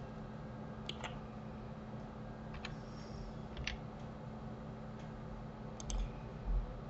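Scattered clicks of a computer mouse and keyboard keys, some in quick pairs, over a steady low hum, with two dull thumps near the end.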